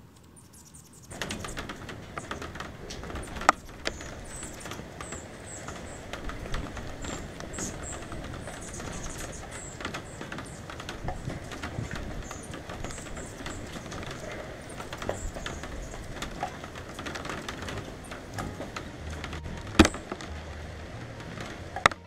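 Rain falling steadily, with drops pattering and ticking on the camera's cover and a few sharp, loud drop taps. The rain starts about a second in. Faint, short, high-pitched bird chirps come through over the rain.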